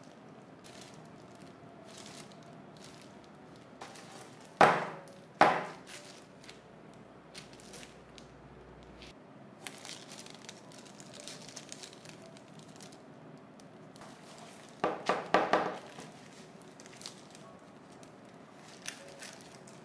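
Disposable plastic gloves and baking paper crinkling and rustling while a metal cake tin of set jelly is handled. Two sharp knocks come close together about five seconds in, and a quick run of knocks about fifteen seconds in.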